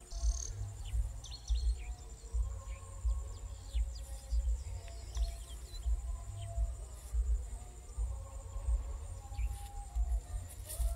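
Outdoor marsh ambience: wind rumbling on the microphone in repeated gusts, under a steady high-pitched insect trill and scattered short bird chirps.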